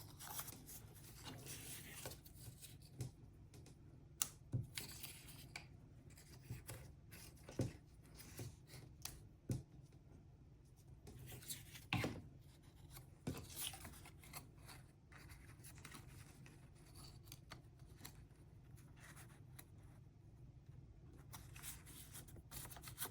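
Faint rustling of paper and cardstock being handled, with scattered light clicks and ticks, as small paper tabs are glued down.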